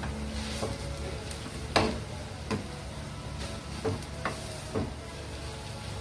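Wooden spatula stirring and flipping a large batch of instant noodles in a nonstick frying pan, over a steady frying sizzle. The spatula knocks against the pan about six times at uneven intervals, the loudest a little under two seconds in.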